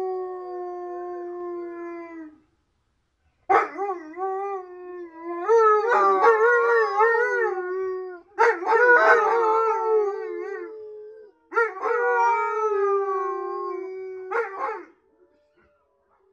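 Alaskan Malamutes howling: a long, steady howl that stops about two seconds in, then after a short pause three more long howls whose pitch wavers up and down, ending shortly before the end.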